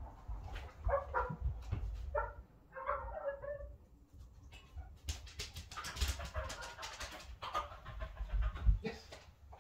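Small dog whimpering in a few short bursts, followed by several seconds of scattered clicks and rustles.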